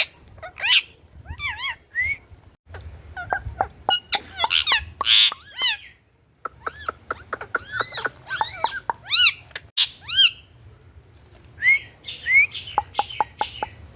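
Indian ringneck parakeet chirping and calling in quick runs of short, arched notes mixed with sharp clicks, at times about three notes a second. There is a brief pause about six seconds in.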